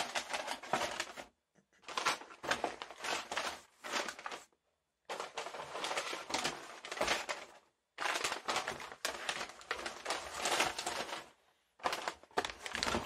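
Crinkling and crackling of packaging being handled and rummaged through, in several bursts broken by short silences.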